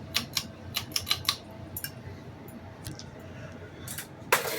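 Emperor ceiling fan running on its low setting with a steady low hum, over a series of sharp, irregular clicks and light rattles, the loudest cluster near the end.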